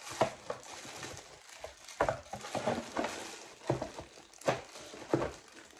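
Clear plastic bag crinkling and rustling as a ceramic wax warmer and its cord are handled, with several light knocks.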